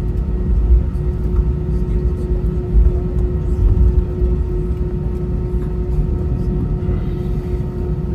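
Airbus A320 cabin noise: the jet engines running with a steady low rumble and a constant hum.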